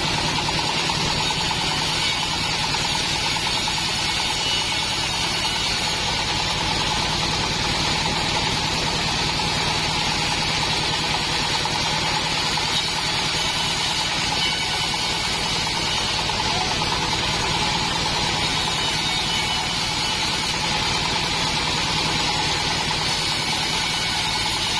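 Bandsaw mill's engine running steadily at an even speed, with no change in pitch or load.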